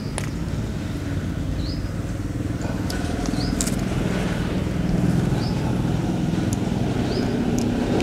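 A motor vehicle engine running steadily, growing a little louder, with a short high chirp repeating about every second and a half.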